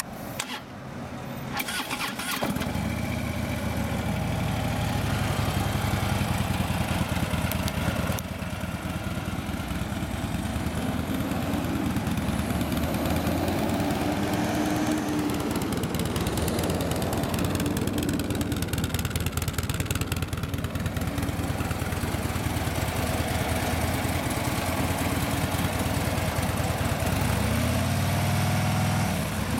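Harley-Davidson 103-cubic-inch fuel-injected V-twin engine being cranked and catching about two seconds in, then running steadily at idle.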